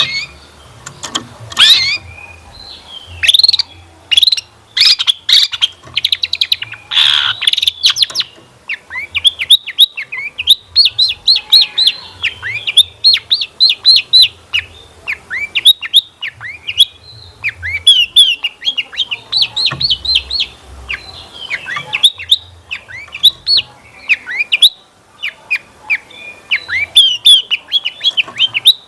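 Long-tailed shrike (cendet) singing a fast, unbroken run of short chirps and quick falling whistles, its song filled with mimicked notes of other birds. There are some harsh, scratchy notes in the first several seconds.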